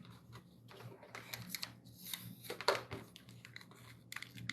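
A small plastic zip tie being worked tight around a cable: irregular rustling and ticking, with one sharper click a little past the middle.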